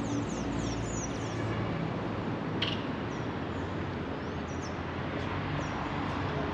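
Steady city street noise from passing traffic, with small birds chirping high above it: a quick run of short falling chirps in the first second and a half, then scattered calls. One short sharp sound about two and a half seconds in.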